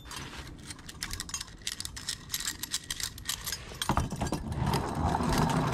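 Small metal objects jingling and clinking as they are handled, with a single knock a little under four seconds in.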